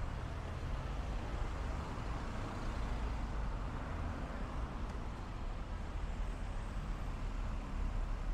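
Road traffic on a town street: car engines running and vehicles moving past close by, a steady low rumble with tyre noise.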